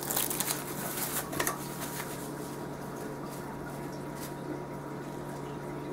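Plastic bag crinkling as a plastic storage lid is pulled from its wrapping, loudest in the first half second, followed by a few light clicks and taps of lids and glass containers being handled.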